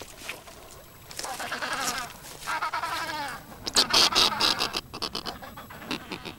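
Snow petrels calling at a rock-crevice nest: two harsh, chattering calls about a second long each, then a louder, rasping call around four seconds in.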